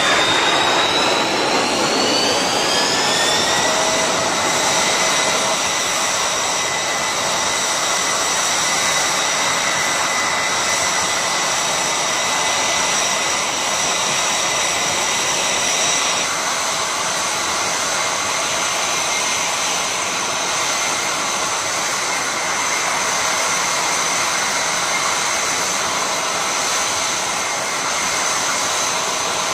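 Air-raid warning siren rising in pitch for about the first four seconds, then holding a steady high tone over a rushing noise. It is the warning signal for an air strike, war or other emergency.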